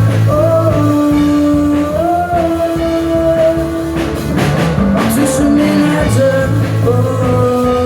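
Live rock music from a band: a singer holding long notes over guitar, bass and drums.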